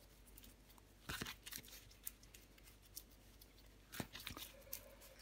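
A tarot deck being handled and shuffled in the hands: dry card rustles and a few crisp snaps, bunched about a second in and again near four seconds.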